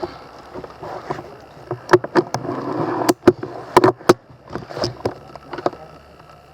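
A run of sharp clicks and cracks, about a dozen, with rustling noise between them.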